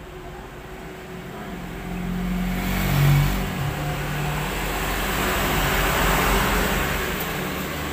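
A motor vehicle passing by: its engine and road noise swell over the first few seconds, stay loud for a while, then slowly fade.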